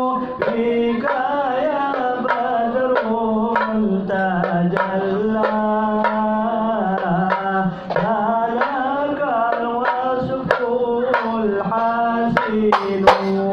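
Devotional singing over a steady beat of frame-drum strikes, one about every half-second; the drum hits grow louder right at the end.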